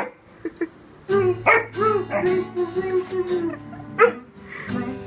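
Acoustic guitar strummed in chords, joined about a second in by a Weimaraner puppy howling along in drawn-out, wavering notes.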